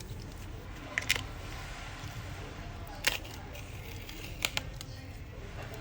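Sharp clicks and snaps of a phone's old LCD panel being pried and forced off its frame: a pair about a second in, a single one about three seconds in, and another pair near the end.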